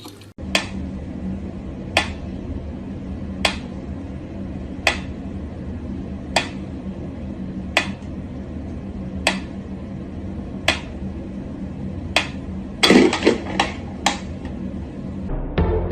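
Sharp clicks or taps repeating evenly about every second and a half over a low steady hum, with a quick flurry of taps near the end.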